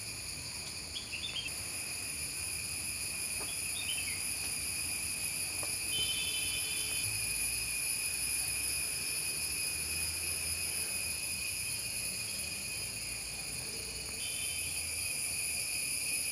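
Crickets chirring in a steady, high-pitched background chorus, with a few short higher calls over it now and then.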